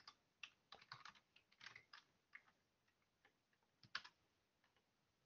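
Faint typing on a computer keyboard: a quick run of keystrokes over the first two and a half seconds, then a single louder click about four seconds in.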